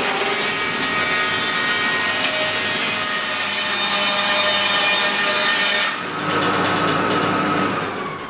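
Band sawmill blade cutting lengthwise through a log, a loud steady sawing sound. About six seconds in the sound drops and changes, then fades near the end.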